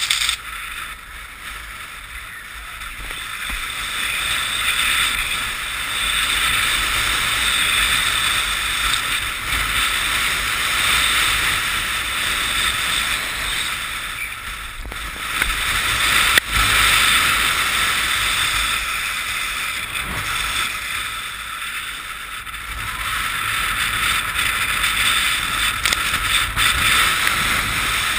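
Rushing noise of downhill skiing picked up by a helmet-mounted GoPro: wind and skis hissing over packed snow, with a low rumble underneath. The noise swells and eases several times.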